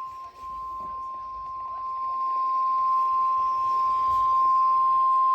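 NOAA Weather Radio's 1050 Hz warning alarm tone: one steady, unbroken high beep that grows louder, over faint radio static. It is the alert tone that precedes a new warning broadcast, here a tornado warning.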